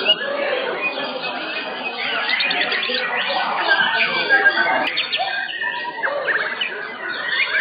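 White-rumped shamas (murai batu) singing over one another in competition cages: a dense, continuous tangle of whistles, quick rising and falling notes and rapid chirps.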